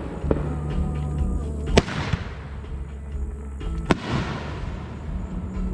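A multi-shot firework cake firing its shots one at a time. There are two sharp bangs about two seconds apart, each trailed by hiss and crackle.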